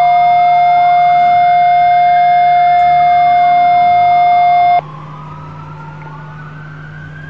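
Several emergency-vehicle sirens wailing at once, their pitches gliding up and down and crossing. A loud steady tone sounds over them and cuts off abruptly a little under five seconds in, leaving the sirens much quieter.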